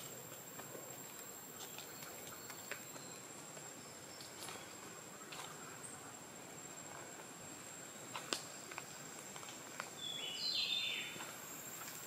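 Lowland tropical rainforest ambience: a steady high-pitched insect drone over a background hiss, with scattered clicks and rustles of footsteps and brushed leaves. A short bird call near the end is the loudest sound.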